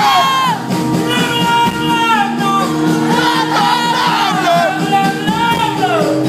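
Live rock music: a male singer's voice gliding and falling over held guitar and instrument tones.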